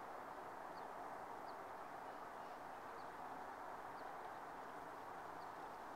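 Quiet outdoor evening ambience: a faint, steady rushing hiss with a few faint, short, high bird chirps scattered through it.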